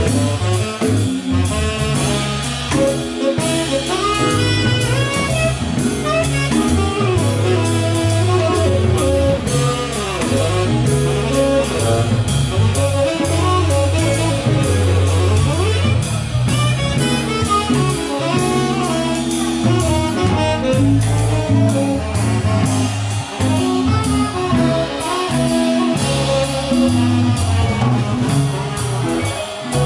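Live band playing an instrumental number, with saxophone over electric guitar, drum kit and a moving bass line.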